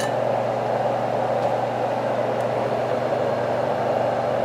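Marpac Sleep Mate sound conditioner running on its low setting: a steady fan-like rush of air with a faint low hum beneath it.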